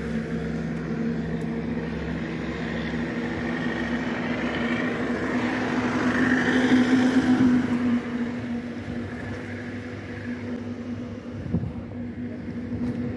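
Road traffic: a steady engine hum runs throughout, and a vehicle passes, swelling louder about five to eight seconds in and then fading.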